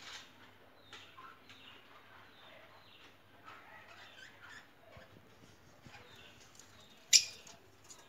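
Lovebirds chattering softly in a cage, a run of faint short chirps and twitters. A single brief, sharp, loud sound comes about seven seconds in.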